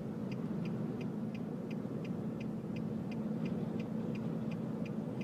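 Hazard-light flasher ticking steadily, about three ticks a second, inside a car's cabin over the steady hum of the engine and road noise.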